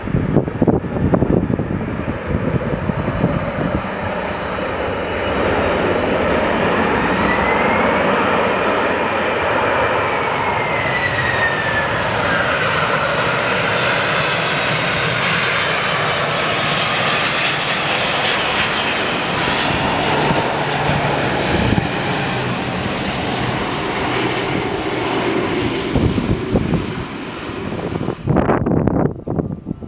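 Jet engines of a landing JAL Boeing 767 passing close by. The engine noise swells, then holds loud and steady, with whining tones that fall in pitch as the plane goes past. Gusty wind buffets the microphone near the start.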